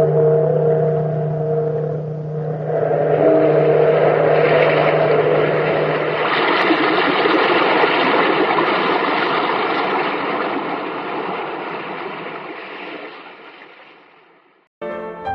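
A large bell tolling with a long ring, struck again about three seconds in, beneath a swelling rush of surf-like noise that gradually fades out near the end: the radio show's closing bell-and-sea sound effect.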